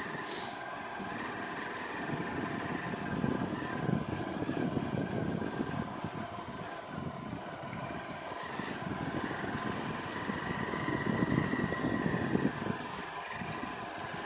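Small motorcycle being ridden, its engine running at a steady pitch under a fluctuating rumble of wind and road noise.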